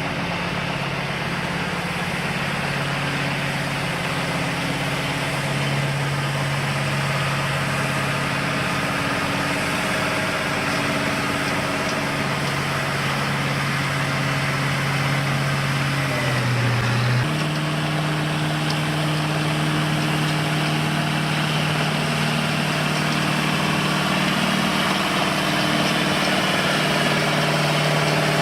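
Engine of road-paving machinery running steadily. About sixteen seconds in, its note dips briefly, then holds a little higher.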